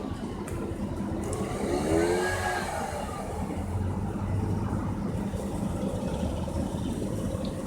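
Leaf blower throttled down and running low. About two seconds in there is a brief rise and fall in pitch.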